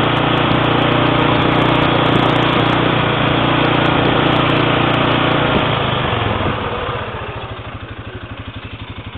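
Quad bike (ATV) engine running steadily as it rides along a dirt track, with tyre noise. About six seconds in it drops off to idle, a steady even putter of roughly nine beats a second.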